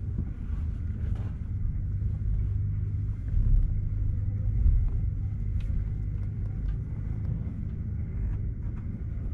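Low, steady rumble inside a JR Shonan-Shinjuku Line commuter train cabin, with a few faint ticks and knocks.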